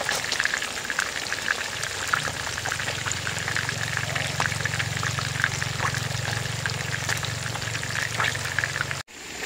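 River fish deep-frying in hot oil: a steady sizzle full of small crackles and pops, with a low hum underneath from about two seconds in. It cuts off abruptly near the end.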